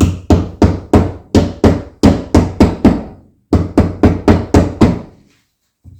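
Hammer tapping a strut assembly part down to seat it: about ten sharp metallic strikes at roughly three a second, a short pause, then about seven more, each with a brief ring.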